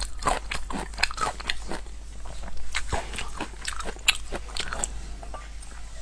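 Crunchy food being bitten and chewed: a quick, irregular run of crisp crunches and crackles, several a second.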